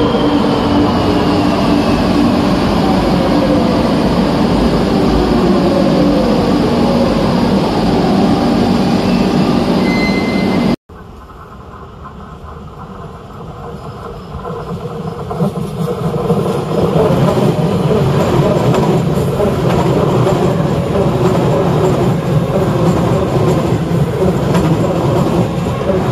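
Madrid Metro electric train. Its motor whine falls steadily in pitch over the running noise as it slows. After a sudden cut, a train's rumble of wheels on rail grows louder over several seconds and holds as it comes through the station.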